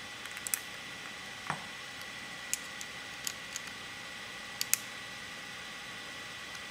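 Scattered small clicks and taps of metal and plastic parts of a PMI Piranha R6 paintball marker being handled and fitted back together, about eight of them at irregular intervals over a steady hiss.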